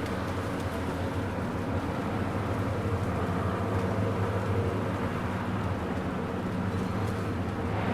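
Suburban rain ambience: a steady wash of rainfall over a strong, steady low rumble that swells briefly near the end.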